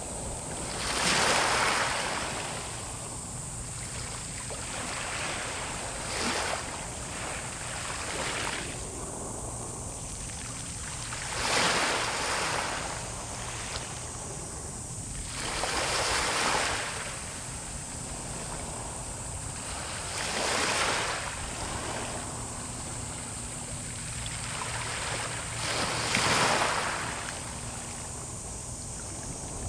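Sea waves breaking on the shore. The surf noise swells loudly about every four to five seconds as each wave crashes, then falls back to a steady wash.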